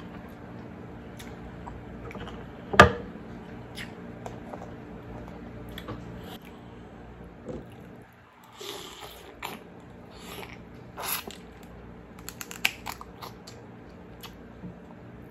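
Close-up mouth sounds of eating king crab meat dipped in sauce: wet chewing, smacking and squishing, with scattered clicks. A single sharp click about three seconds in is the loudest sound.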